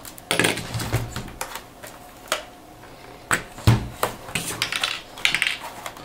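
A small screwdriver and screws being worked on the plastic underside of a Dell Inspiron 15R laptop: irregular clicks, scrapes and light taps, with one sharper knock a little past halfway.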